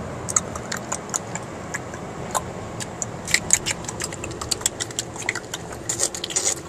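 Car cabin noise: a steady low engine and road rumble, with scattered light clicks and rattles on top that come thicker about halfway through and near the end.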